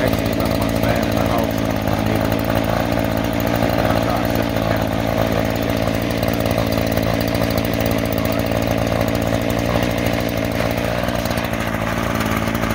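Echo CS-3510 two-stroke chainsaw running at a steady speed.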